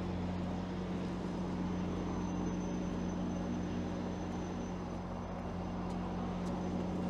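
Stopped GO Transit bilevel commuter train idling at the platform: a steady low hum with a faint high whine.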